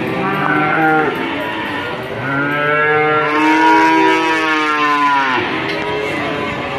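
Cattle mooing: a short moo near the start, then a long drawn-out moo of about three seconds that rises and falls in pitch.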